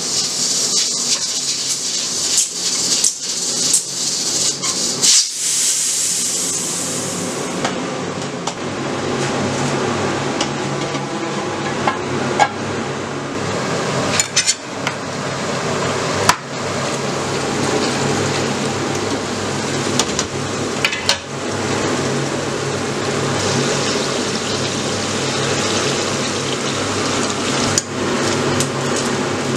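Kitchen cooking sounds: pots and utensils knocking and clinking, with liquid pouring, over a steady hiss and hum. Near the end, rice is tipped from a pot into a pan of water.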